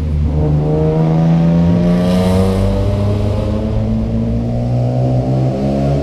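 A motor vehicle's engine running loudly and steadily, its pitch rising slowly as it gathers speed.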